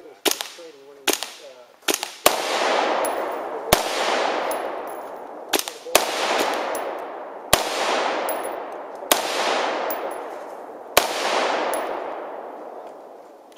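AR-15-type rifle fired one shot at a time, about ten irregularly spaced single shots, the louder ones each trailing a long echo that fades over a second or more.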